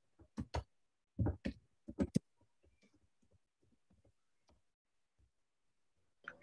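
Computer keyboard typing: a quick run of sharp key clicks, loudest in the first two seconds, then fainter scattered taps and a short louder clatter near the end.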